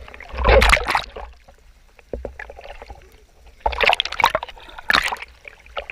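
Water splashing in a few loud bursts around a boat, with a low wind rumble on the microphone.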